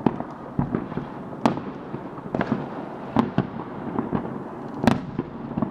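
New Year's Eve fireworks going off all around: an irregular run of sharp bangs and crackles over a steady rumble, some much louder than others, with the biggest bangs about one and a half, three and five seconds in.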